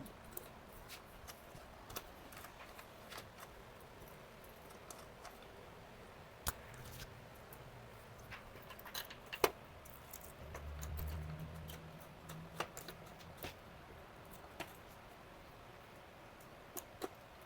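Quiet hand work on parts: scattered small clicks and taps, a couple of sharper ticks, with a faint low hum for a couple of seconds a little past the middle.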